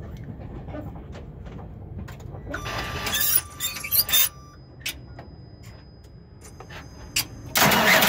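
Freightliner Cascadia's starter being cranked with a loose cable terminal: harsh squealing, crackly bursts about two and a half seconds in and again near the end, with a steady high whine between them. This is the weird starting noise caused by the loose wire not making proper contact and sparking.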